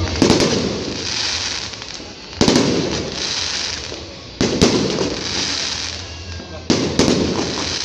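Aerial fireworks shells bursting in a display. There is a sharp bang roughly every two seconds, two of them in quick pairs, and each bang is followed by crackling.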